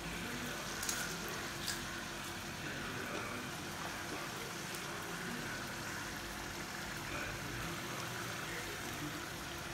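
Hot oil sizzling steadily as diamond-shaped rava snacks deep-fry in an iron kadai, with a couple of light clicks from the metal slotted spoon about a second in. The sizzle shows the snacks are still cooking: frying goes on until this noise dies down.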